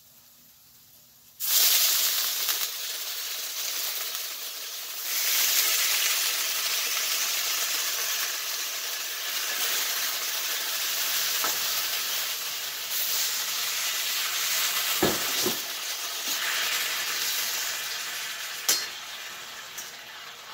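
Marinated chicken pieces sizzling in a wok of hot oil with sautéed onion and garlic. The sizzle starts abruptly about a second and a half in, swells again around five seconds in, then slowly dies down, with a few sharp knocks near the end.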